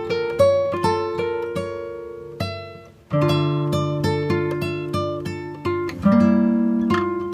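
Background music: acoustic guitar playing a slow run of plucked notes and chords, each note ringing out and fading, with a new chord struck about six seconds in.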